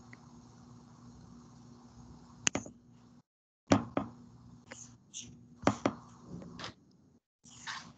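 Scattered knocks, taps and rustles of someone moving and handling things near a computer microphone on a video call, over a faint steady electrical hum; the sound cuts out completely for moments in between.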